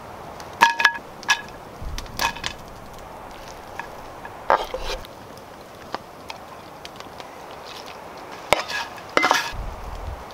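Stew ingredients and utensils going into a cast iron Dutch oven: a series of sharp knocks and clinks, some with a short metallic ring. They come in clusters about a second in, around four and a half seconds and near the end.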